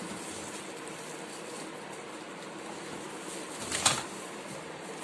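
Steady low hiss with one short clatter about four seconds in, from vacuum cleaner parts being handled.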